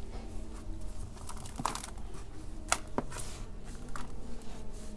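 Digging in the potting soil of a large container: soft scraping and rustling of soil, with a few sharp clicks about two and three seconds in.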